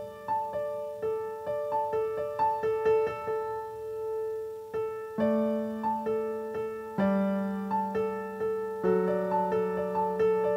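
Background piano music: a melody of single struck notes over held low chords.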